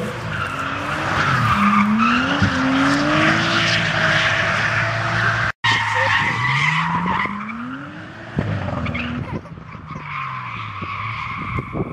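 Drift car's engine revving hard while its tyres squeal in a long smoky slide; the engine pitch climbs twice, with a brief break just past halfway.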